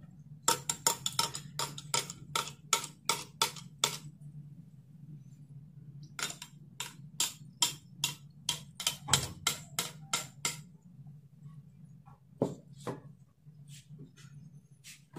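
A metal spoon stirring soda in a drinking glass, clinking against the glass in a quick run of about four clinks a second. It pauses for about two seconds, a second run follows, and a few single clinks come near the end. A steady low hum sits underneath.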